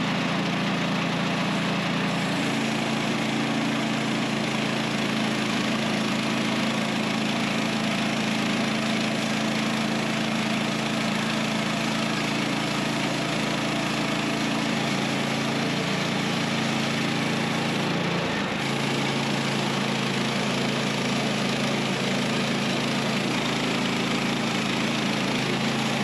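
Gas engine of a Woodland Mills HM126 portable band sawmill running steadily under load while the band blade cuts through a spruce log, a constant engine drone with a hiss of sawing over it. The engine note briefly dips and shifts pitch about two-thirds of the way through.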